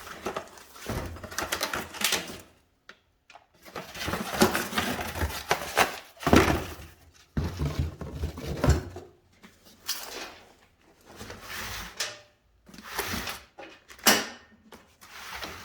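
Cardboard boxes and small packets of chain parts being handled and unpacked: irregular rustling and rubbing with sharp clicks and taps, in short bursts with brief pauses.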